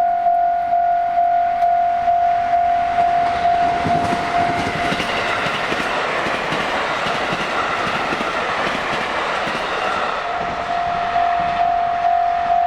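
Japanese railway level-crossing warning bell ringing its steady electronic "kan-kan" at about two strokes a second. From about four seconds in, a train passes through the crossing, its rumble and wheel noise swamping the bell until about ten seconds in, when the bell rings clearly again.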